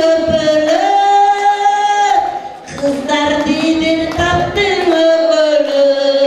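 An older woman singing unaccompanied into a microphone, in long drawn-out notes that step up and down.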